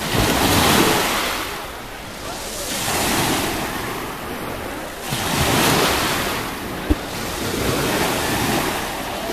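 Sea waves breaking and washing up the shore in repeated surges, one every two to three seconds, with wind on the microphone. A brief knock about seven seconds in.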